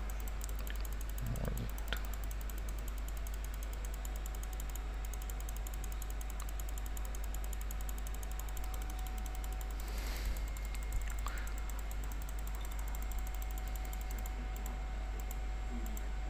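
Rapid, regular clicking of a computer mouse button, over a steady low hum.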